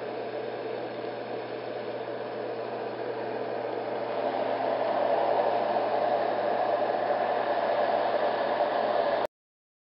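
Marpac Dohm fan-based white-noise machine running with a steady whooshing rush of air. About four to five seconds in, the rush grows louder and fuller as the cap is twisted to change the openings. It cuts off abruptly near the end.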